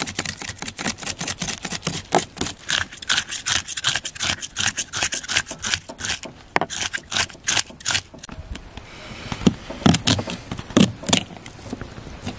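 Knife scraping the scales off a large whole river fish on a cutting board, in rapid repeated strokes. Near the end come a few separate knife knocks as the scaled fish is cut into on a wooden board.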